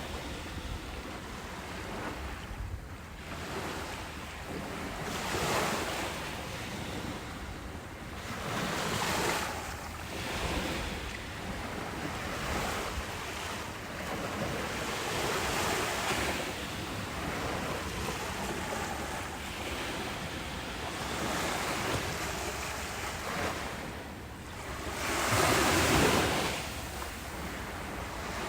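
Ocean waves breaking on a beach, a steady wash with surges every few seconds, one larger wave breaking near the end. Wind on the microphone.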